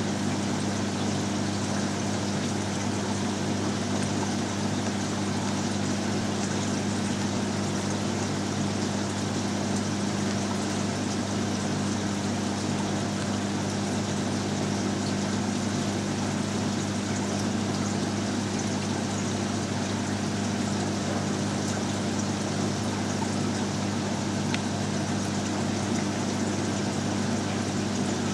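Reef aquarium pumps running with a steady low hum over an even rush of moving water.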